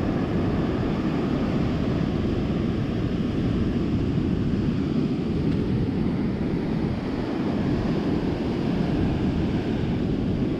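Ocean surf washing up the beach, mixed with wind rumbling on the microphone: a steady, even rush of noise.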